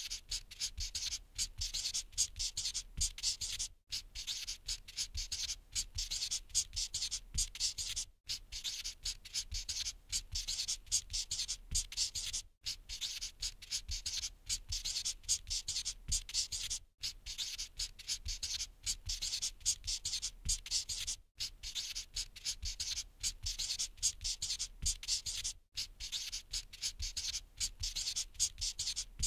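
Felt-tip marker scribbling on a whiteboard in quick, scratchy strokes. The sound stops briefly about every four seconds and starts again.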